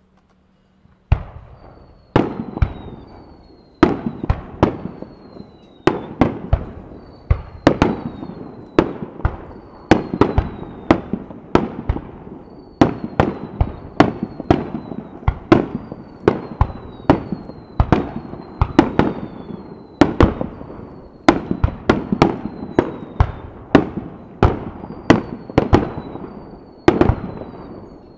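Aerial firework shells going off in a rapid barrage, about two sharp bangs a second, each echoing away, starting about a second in. Faint short falling whistles sound between the bangs.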